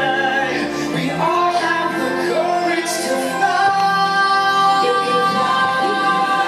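The fireworks show's orchestral soundtrack, with long held notes and singing carried over it.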